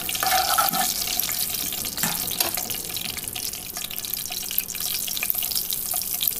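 Tempering seeds sizzling and crackling in hot oil in a pot: a steady hiss with many small pops as the spices fry.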